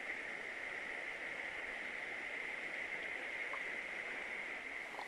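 Shallow river running over stones, a steady rush of water, with a steady high-pitched hum over it.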